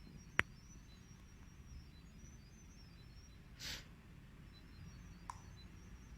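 A single sharp click about half a second in, a short breath-like hiss a little past the middle, and a fainter click near the end, over a low steady hum.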